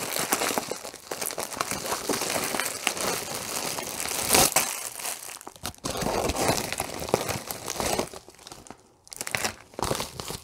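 Plastic mailer bag crinkling and tearing as it is opened and crumpled, with the cellophane-wrapped kits inside rustling as they are pulled out. The crackling is dense for most of the time, with one louder crackle about four seconds in, and thins to scattered rustles near the end.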